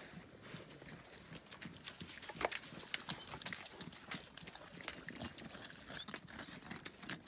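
Stray dogs eating and moving about on a wet, slushy road: a dense run of small, irregular clicks and crackles from chewing and paws, with one sharper, louder click about two and a half seconds in.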